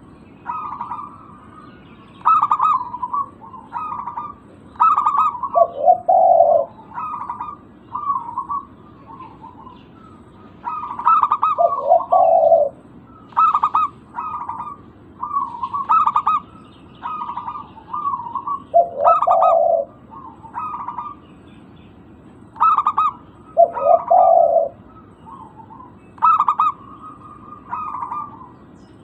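Zebra doves (local perkutut) cooing: repeated phrases of short, rapid coo notes, several of them closing on a lower, longer note.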